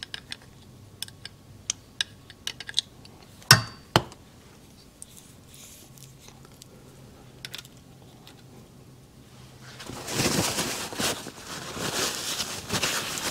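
Light clicks and taps of small metal parts as the oiled small-end needle bearing is handled at the connecting rod of a two-stroke engine, with two louder knocks about three and a half and four seconds in. From about ten seconds in, a rustling, scraping noise of handling.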